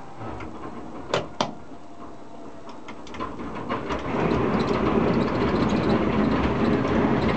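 Shvetsov ASh-82T 14-cylinder radial engine of an Ilyushin Il-14 being started, heard from the cockpit. Two sharp clicks come about a second in, then the engine turns over with a few pops and catches about four seconds in, settling into a loud, steady run.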